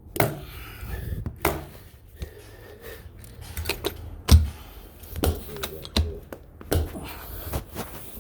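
Irregular knocks, taps and clicks of carpet-laying work, about ten in eight seconds, with one heavier thump about four seconds in.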